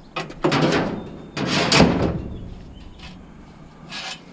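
Scraping and knocking of a hard object being moved. Two noisy bursts come about half a second and a second and a half in, the second the louder, and a fainter one follows near the end.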